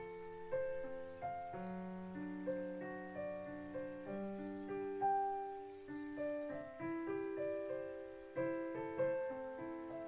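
Solo piano music: a slow, gentle piece of single notes and chords, each note struck and left to ring and fade.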